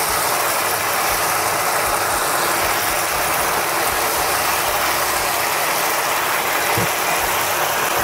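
Fried fish sizzling steadily in a hot pan of bubbling ginger, tamarind and soybean sauce.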